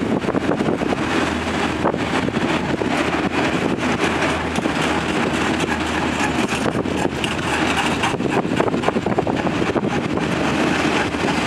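Enclosed autorack freight cars rolling past on the rails: a steady rumble of steel wheels on track, dense with small clicks and clatter.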